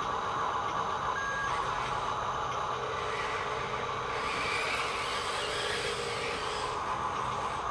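Huina radio-controlled toy construction machines running, a steady whir from their electric motors and gears, with a brief higher tone about a second in.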